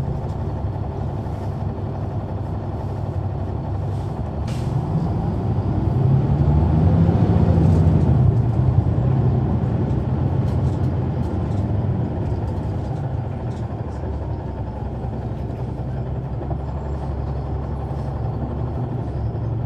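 Caterpillar C9 ACERT diesel engine of a Neoplan AN459 articulated bus, heard from inside the bus, running steadily under way. It grows louder for a few seconds in the middle as it pulls harder, then eases back.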